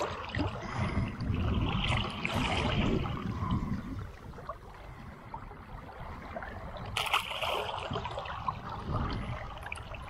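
Water splashing as a hooked fish thrashes at the surface, with a sharp splash about seven seconds in.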